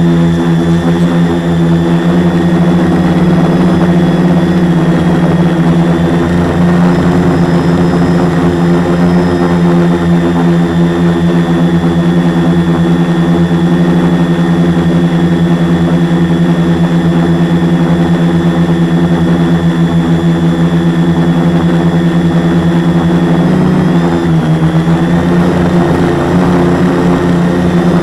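Quadcopter's four Multistar 2212 920kv brushless motors spinning 10x4.5 propellers in flight, a loud steady drone with a strong hum, heard from a camera mounted on the frame. The pitch dips briefly and recovers about 24 seconds in.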